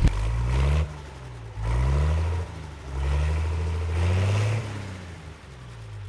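Farmall H tractor's four-cylinder engine running and being revved up and down, about three swells in engine speed before it settles back.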